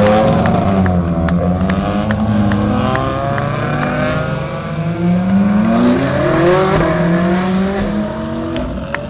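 Race-car engines, Ferrari Challenge cars and a Porsche 911 GT3 Cup, revving and easing off as they pass one after another through a bend. The engine notes fall about a second in and rise again past the middle.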